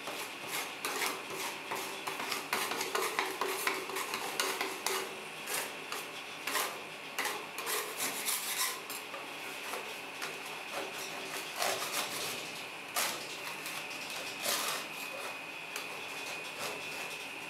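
Metal spatulas chopping, tapping and scraping on a stainless-steel rolled-ice-cream cold plate, working a thin frozen layer of white ice cream in quick irregular strokes. Near the end a spatula blade is pushed flat along the plate, scraping the layer up into rolls. A steady high tone sits underneath.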